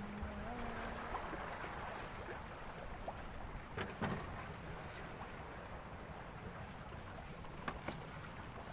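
Steady wind and water noise with a low rumble on the microphone, broken by a few faint knocks about four seconds in and again near the end.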